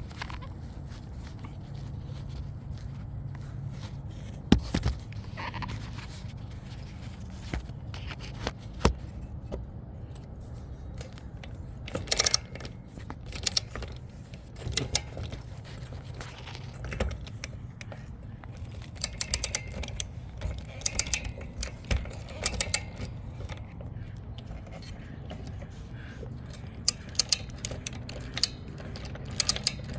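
Metal hand tools clicking and clinking in scattered bursts while a spark plug is tightened with a socket on a torque wrench: a sharp click about four and a half seconds in, then clusters of clinks, over a steady low hum.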